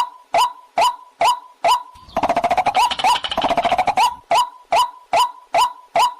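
Waterhen call, a recording played as a lure to catch the bird: a harsh call note repeated a bit more than twice a second, with a rapid chattering burst over the repeats from about two to four seconds in.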